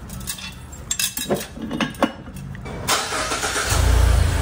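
A few sharp metallic clicks from a steel jack stand's release being worked. About three seconds in, the 2021 Mazda CX-30's 2.5-litre non-turbo four-cylinder engine starts with a loud low rumble, run briefly to circulate the fresh oil after an oil change.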